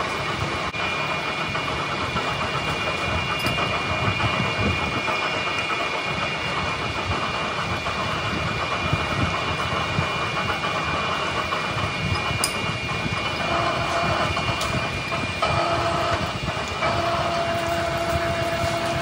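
Manual lathe running while a boring bar cuts inside a large steel spindle: a steady machine noise with a thin high whine over it. From about two-thirds of the way through, a lower steady hum joins in.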